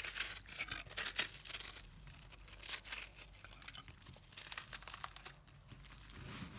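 Dry, microwave-puffed soap crunching and crackling as it is crushed, in several short bursts of crisp crackle.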